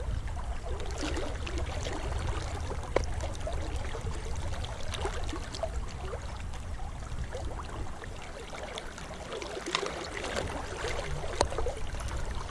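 Fast river current rushing and gurgling around a person wading chest-deep in a flooded spate river, as a steady noise with a few sharp ticks.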